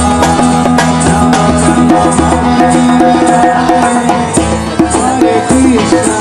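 Music: a steady drum beat under long held notes and a sliding melody line.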